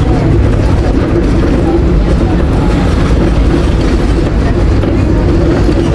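Interior of a moving city bus: steady engine and road rumble, with no pause.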